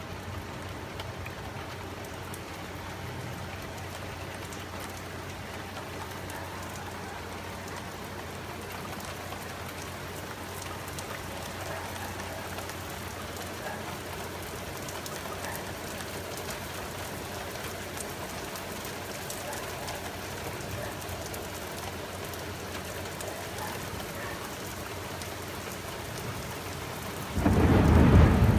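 Steady rain falling in a thunderstorm. Near the end, a sudden loud clap of thunder breaks in, heavy in the deep low end.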